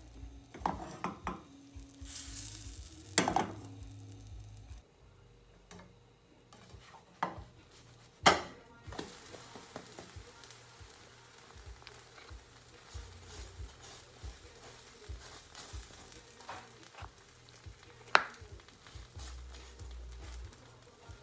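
Pancake batter sizzling faintly in a frying pan over a gas burner, a steady hiss that grows fuller after the first several seconds. Sharp clicks and knocks of a kitchen utensil against the pan come every few seconds; the loudest are about 3 s in, about 8 s in and near the end.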